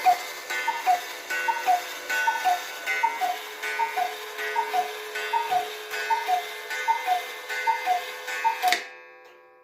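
Black Forest cuckoo clock by Hubert Herr calling cuckoo twelve times. Each call is a falling two-note pair from its bellows-driven pipes, one about every three-quarters of a second, with the bellows' airy hiss underneath. After the last call a ringing tone fades away and the movement's ticking is heard faintly.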